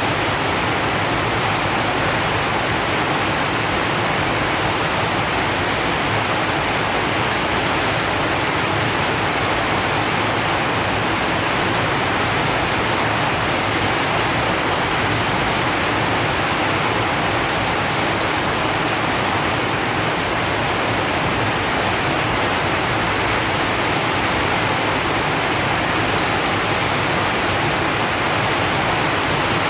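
Steady heavy rain falling on a zinc sheet roof, a dense, unbroken hiss with no single drops standing out.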